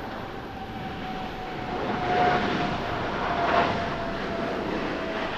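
Jet engines of a Boeing 747-8F freighter at takeoff thrust as it lifts off and passes by: a loud rushing jet noise that swells to its loudest about two to three and a half seconds in, with a fan whine that slowly falls in pitch as the aircraft goes past.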